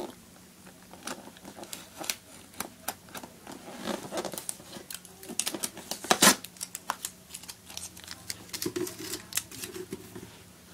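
Fingers picking and scratching at the tape and flaps of a cardboard box: many small clicks and scrapes, with one louder snap about six seconds in.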